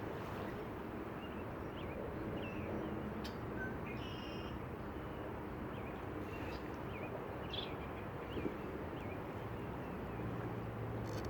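Steady outdoor background noise with faint, short bird chirps scattered through it.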